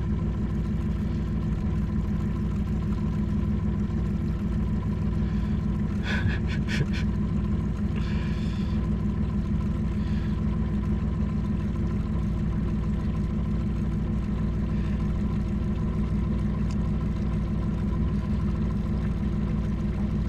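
Boat motor running steadily at low speed, an even hum throughout. A short run of sharp clicks comes about six seconds in.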